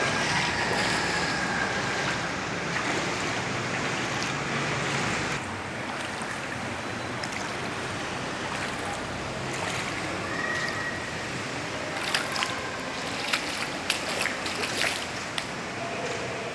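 Steady rushing noise of floodwater, slightly quieter after about five seconds, with a few sharp clicks or knocks in the second half.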